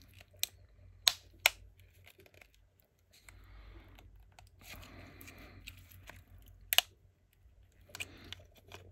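A blade scraping and levering along the seam of a plastic USB-C charger case as it is pried open, with several sharp plastic clicks, the loudest about two-thirds of the way through.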